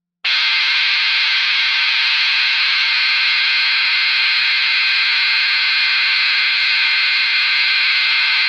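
Loud, steady hiss like static noise that switches on suddenly and cuts off abruptly, with no change in between.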